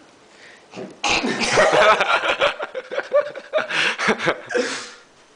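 Laughter: a burst of chuckling that starts about a second in and dies away near the end.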